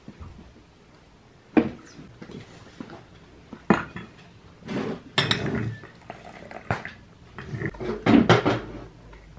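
Dishes, pans and cutlery knocking and clattering: a series of sharp knocks, with the loudest cluster near the end.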